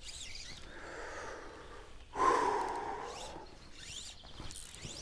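A man breathes in and lets out a long, loud, exasperated sigh about two seconds in, fading away over a second or so.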